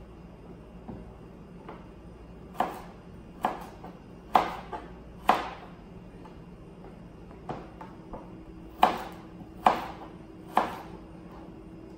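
Kitchen knife slicing carrot on a plastic cutting board: sharp, separate knocks about one a second, a run of four, a short pause, then four more.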